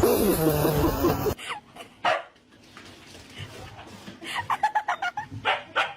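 Dog barking and yipping, ending in a quick run of short yips in the second half. The sound cuts off abruptly about a second and a half in.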